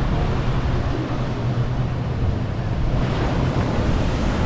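Steady wash of ocean surf mixed with wind buffeting the microphone, with a constant low rumble.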